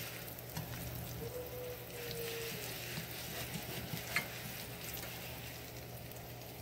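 Panko-breaded chicken cutlets sizzling in a shallow layer of avocado oil in a skillet on low heat, a steady gentle hiss with light scattered crackles. A single sharper click comes about four seconds in.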